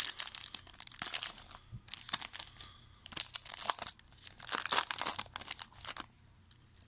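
A trading-card pack wrapper being torn open and crinkled by hand, an irregular crackling that stops about six seconds in.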